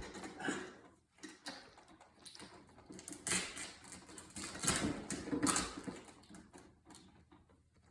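Irregular handling noises: a few short scraping, rustling bursts with quiet gaps between them.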